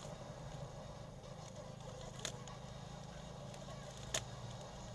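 Two sharp clicks, about two seconds apart, the second louder, over a steady low hum and faint crackling handling noise.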